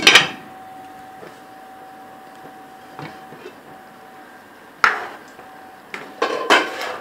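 A glass pot lid clinks down onto a cooking pot right at the start and rings briefly. About five seconds in, another sharp clink comes as the lid is lifted off, followed by knocks and scrapes of a wooden spoon stirring thick dal in the pot. A faint steady hum runs under the first half.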